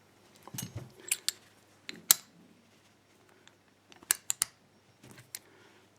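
Brass padlock and its loose parts clicking and tapping as they are handled. There are a few sharp clicks about one and two seconds in, then a quick run of three clicks around four seconds.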